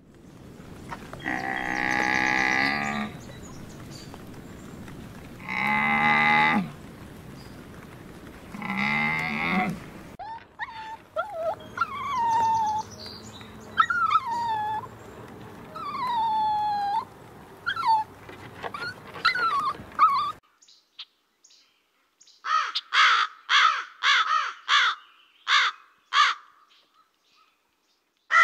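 Three long moaning calls from a camel, each about a second or two long. Then a run of short, falling whistled calls. Near the end, a Eurasian jay gives harsh, rasping calls in quick succession.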